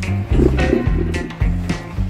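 Music with a deep bass line, its held low notes changing every half second or so.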